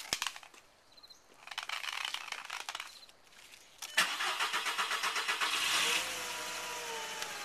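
A VW's starter cranks in short tries, then about four seconds in the engine catches with a fast rattle and settles into steady running, its pitch easing slightly down. The car's failure to start when cold is put down to a bad solder joint in its ECU.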